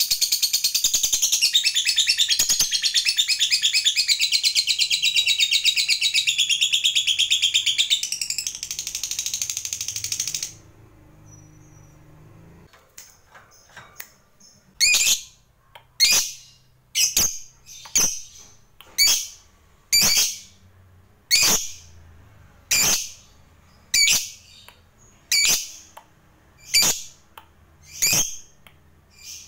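Fischer's lovebird giving a long, very fast chattering trill (the 'ngekek panjang' that lovebird keepers prize) that cuts off suddenly about ten seconds in. After a short pause it gives a steady string of short, sharp chirps, roughly one a second.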